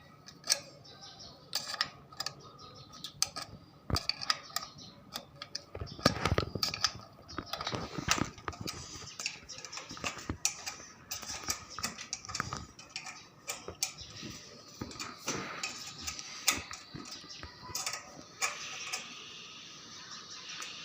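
Irregular metallic clicks, taps and clinks of hand work on a door closer's metal arm fittings, an Allen key being worked to tighten a screw.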